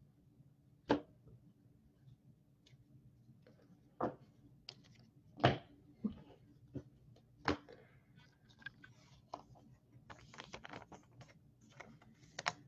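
2019 Bowman Draft baseball cards being flipped through by hand: scattered sharp snaps and slides of card stock, a few louder ones, then a quick flurry of small clicks near the end.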